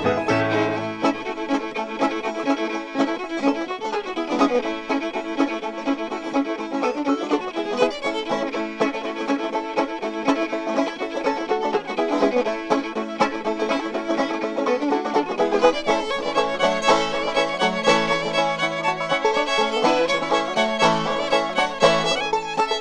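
Celtic folk band playing a set of fast reels from a vinyl record, a fiddle carrying the tune over a plucked-string accompaniment.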